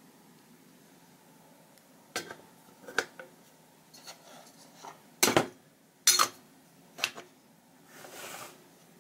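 Tinplate can and its metal lid being handled: about five sharp metallic clinks and knocks, the loudest about five and six seconds in, then a short scrape as the lid is fitted onto the can.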